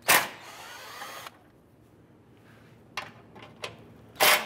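Cordless drill driving a 10 mm socket on an extension to spin out a bolt: a loud short burst, with the motor running on for about a second. A few light clicks follow, then a second short burst near the end as it starts on the next bolt.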